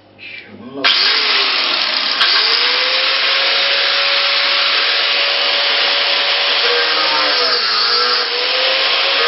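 Electric angle grinder switching on about a second in, then running steadily as it grinds old tile adhesive and mortar out of the floor. Its pitch dips and wavers toward the end as the disc bites under load.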